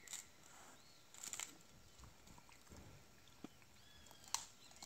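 A maned wolf chewing food, faint scattered crunches, about five in all, the sharpest one near the end. Faint high chirps sound in the background.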